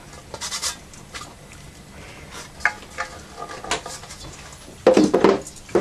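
Small metal tins being handled: scattered light clinks and rattles, with a louder burst of clattering about five seconds in.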